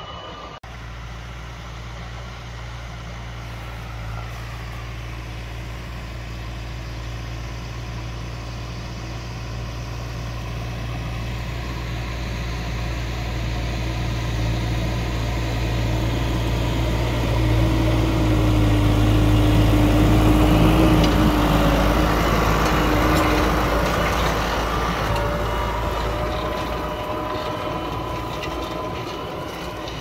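Tractor engine running steadily under load as it pulls a heavy 11-tine cultivator through ploughed soil. It grows louder as the tractor passes close, loudest about two-thirds of the way through, then fades as it draws away.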